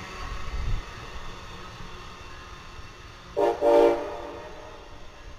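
Two short blasts of a train's multi-tone chime signal, a brief toot and then a slightly longer one, about three and a half seconds in, over the low rumble of a passing train.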